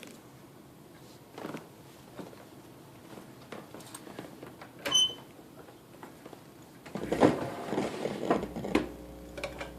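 Handling noises from reaching in behind a computer under a cabinet: a knock, a sharp click with a brief ring about five seconds in, then a couple of seconds of scraping and rustling. A steady hum sets in near the end.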